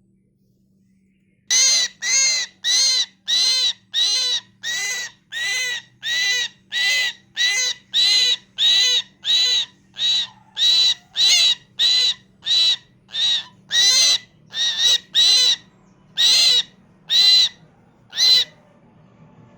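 A mynah calling, the same short note repeated about every two-thirds of a second, some two dozen times. The calls begin about a second and a half in and stop shortly before the end.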